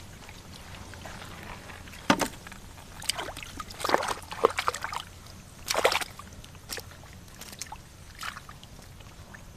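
Splashing and sloshing in shallow water as fish are caught by hand: a sharp splash about two seconds in, a cluster of splashes between three and five seconds, and another near six seconds, then smaller drips and ticks.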